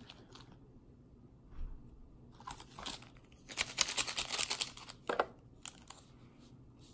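Crinkling and rustling of small foil and plastic candy-kit packets being handled, with a dense burst of crackling for about a second in the middle and a few softer rustles around it.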